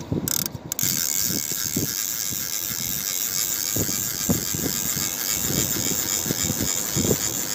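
Spinning fishing reel being cranked steadily, a continuous fast gear whirr, as line is wound in under the load of a bent rod. It starts about a third of a second in, with uneven low knocks through it.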